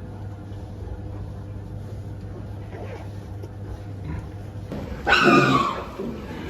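A pig gives one loud squeal about five seconds in, over a steady low hum.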